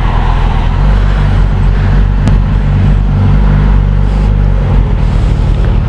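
Suzuki GSX-S1000GT motorcycle's inline-four engine running steadily on the move, with wind rumble on the microphone.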